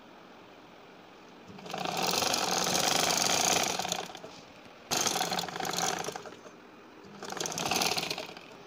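Vintage black Singer sewing machine running in three bursts, the first about two and a half seconds long and the next two shorter, with short pauses between them, as it stitches a narrow folded hem.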